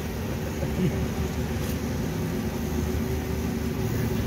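Car engine and road noise heard inside the cabin of a moving car: a steady low hum.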